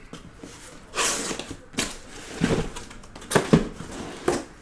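Cardboard case of shrink-wrapped hobby boxes being handled: a series of short scrapes and knocks as the boxes and case are shifted.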